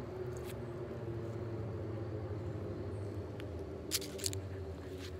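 A passing motor vehicle's engine, which the trainer takes for a motorcycle, humming low and steady, with two sharp clicks about four seconds in.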